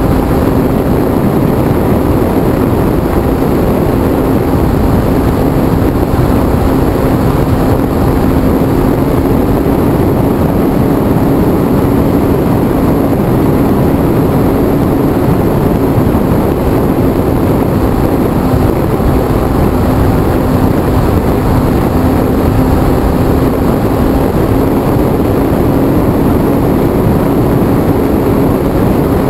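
HobbyZone Super Cub RC airplane in flight, recorded on board: its electric motor and propeller hold a steady droning tone that shifts slightly in pitch now and then, under heavy wind rush on the microphone.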